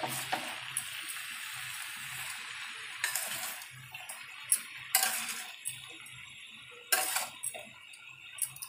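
Vegetables sizzling in hot masala in a metal kadhai while a metal spatula stirs them, with a few scrapes and knocks of the spatula against the pan in the second half.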